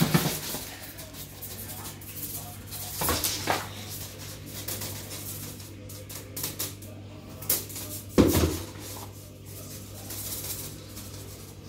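Cat landing on a laminate floor after leaping at a wand toy: a few thuds, the loudest about eight seconds in, with small clattering noises between, over a steady low hum.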